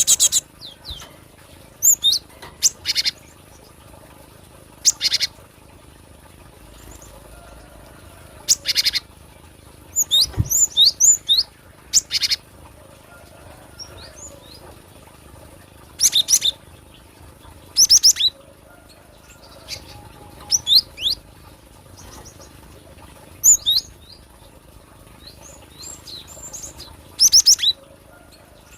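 Gelatik batu (cinereous tit) calling: short clusters of quick, sharp, high-pitched notes, repeated every couple of seconds. A single low thump comes about ten seconds in.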